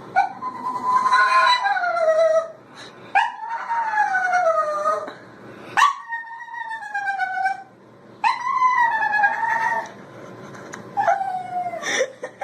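A dog howling in five drawn-out calls, each sliding down in pitch, with short pauses between them.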